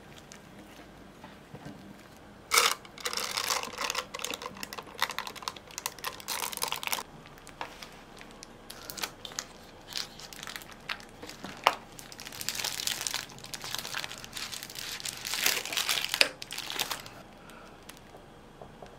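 Disposable plastic piping bag crinkling as it is handled and filled with batter, in two long spells of crackling with a few sharp clicks among them.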